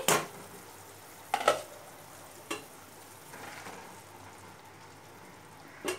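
Curry gravy bubbling at the boil in a pan while it is stirred with a spatula. There are a few sharp clinks of utensil on pan, the loudest right at the start and others about one and a half and two and a half seconds in.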